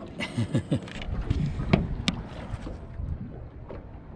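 Water sloshing and gurgling in a boat's live bait tank as a squid settles into it, with two sharp knocks a little under two seconds in.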